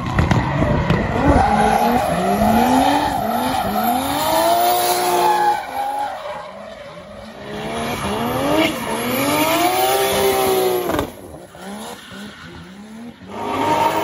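Turbocharged 1JZ straight-six engine of a drifting Toyota Soarer revving hard, its pitch rising and falling over and over as the rear tyres skid and squeal, with a few sharp cracks. It drops low for a couple of seconds near the end before picking up again.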